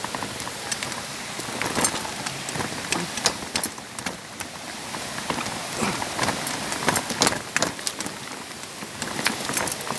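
Footsteps crunching and scuffing on a rocky, gravelly trail, an irregular patter of sharp clicks, over a steady rush of falling water.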